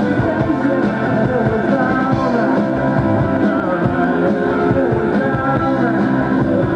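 A live rock band playing, led by electric guitar.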